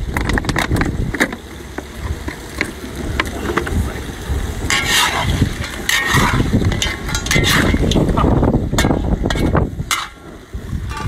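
A metal spatula scraping and stirring seafood in a large iron wok, with clattering of shells against the metal and some sizzling. Wind rumbles on the microphone underneath.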